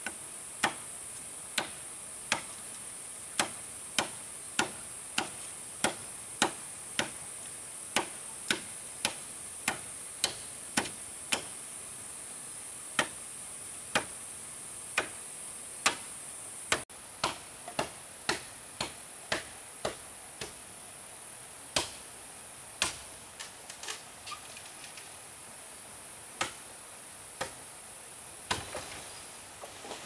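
A hand tool striking wood in a steady rhythm, about one and a half to two blows a second, over a constant high-pitched insect drone. About halfway through, the rhythm breaks and the blows come sparser and irregular.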